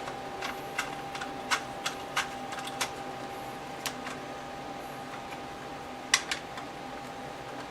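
Light, sharp clicks and taps of small parts being handled while assembling a gun vise's front-end clamp with an Allen key and sleeve. A quick cluster of clicks in the first three seconds, then a few scattered ones, two of them about six seconds in.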